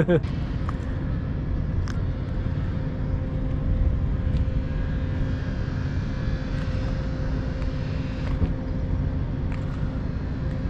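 A boat engine running steadily: a low rumble with an even hum over it.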